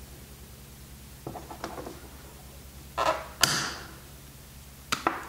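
Side cutters working on a nylon cable tie: a few light clicks, then two sharp snaps about half a second apart as the tie is cut, and another click near the end.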